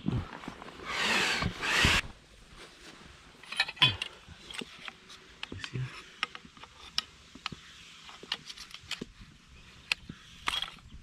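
Aluminium tubes and fittings clicking, tapping and clattering as they are slotted together by hand, with a short cluster of louder knocks about four seconds in. A loud burst of rushing noise fills the first two seconds and cuts off abruptly.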